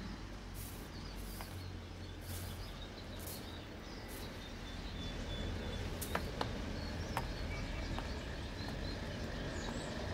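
Caged songbirds chirping with short scattered calls over a steady low hum, with two sharp clicks about six seconds in.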